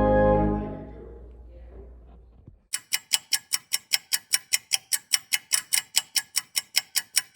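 An organ's final held chord cuts off about half a second in and rings away into the room's echo. After a brief pause, a loud, bright ticking starts and keeps an even pace of about four ticks a second.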